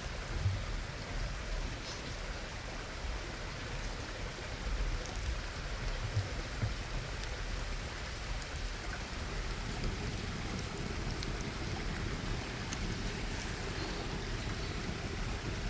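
Food sizzling in a hot pan over an open fire: a steady hiss with scattered faint crackles.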